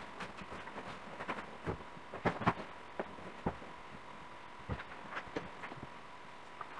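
Pillow and bedding being handled: a pillow shaken into its fabric pillowcase and pillows set and patted into place on a bed, giving soft fabric rustles and muffled thumps, the loudest about two and a half seconds in. A faint steady high tone sits underneath.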